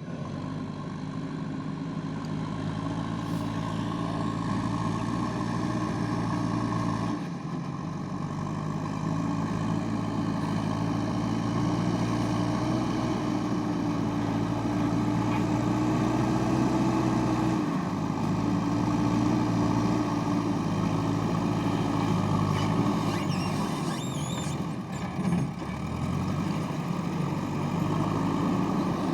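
JCB backhoe loader's diesel engine running steadily under working load, its pitch shifting a little as the load changes.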